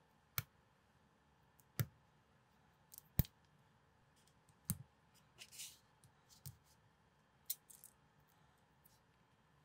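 Small plastic building bricks being pressed together by hand: a string of sharp, separate clicks as the pieces snap into place, about eight in all, with a brief rustling scrape a little past halfway.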